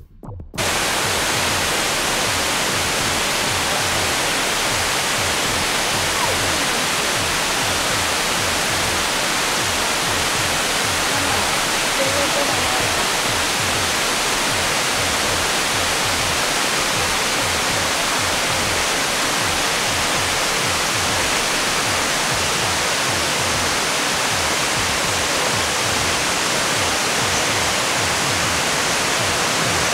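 Rawana Falls waterfall, water pouring down stepped rock cascades in a steady, loud rush of noise. It begins about half a second in, as background music cuts off.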